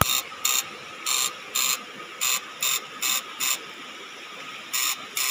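Homemade electrofishing shocker's circuit buzzing in short bursts, about ten of them at an uneven pace of roughly two a second, with a pause of about a second near the end.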